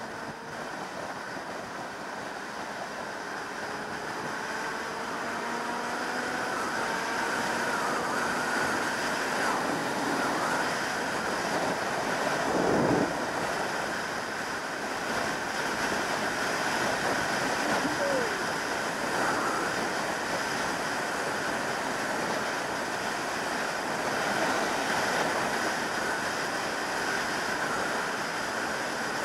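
Wind rushing over a camera mounted on a 2003 Yamaha YZF600R Thundercat at motorway speed, with the bike's inline-four engine note faintly rising underneath as it accelerates over the first several seconds. A brief louder gust of rush about thirteen seconds in.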